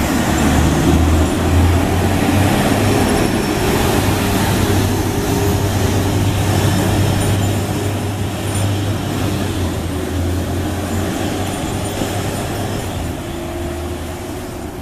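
2005 Seagrave aerial ladder truck's diesel engine pulling away under power, a loud steady low drone that fades gradually as the truck drives off.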